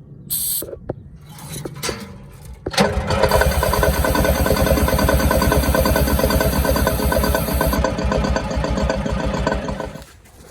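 A few clicks, then the 1971 Insley excavator's diesel engine cranking over fast and evenly on its starter for about seven seconds before it cuts off suddenly.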